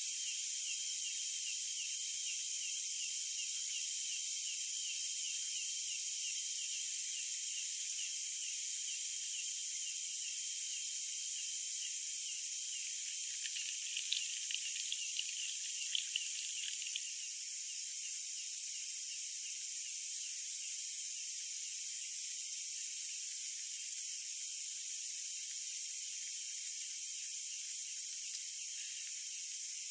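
Insects chirping steadily in a high, even, repeating pattern. Midway, tea is poured from a kettle into a small cup, giving a short run of light splashing and clinks.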